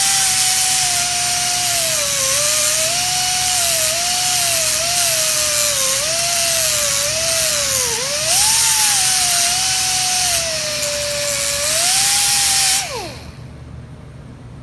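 Small high-speed rotary grinder grinding on a cracked cast-aluminium air blow gun to open up the crack for welding. Its whine dips in pitch each time the bit bears into the metal and recovers as it eases off. Shortly before the end it is switched off and spins down with a quickly falling whine.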